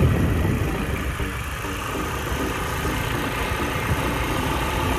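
A vehicle's engine running steadily, heard from on board.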